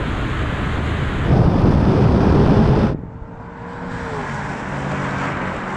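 SUVs accelerating hard at speed: a dense rush of wind and tyre noise over a low engine note, growing louder for a couple of seconds. About three seconds in it cuts to a quieter, steadier rush of a car driving past, with a brief falling whine.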